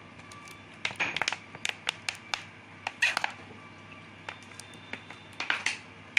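Thin plastic bottle crackling and clicking in the hand as cooking oil is poured from it into a bowl, in several short clusters of sharp crackles.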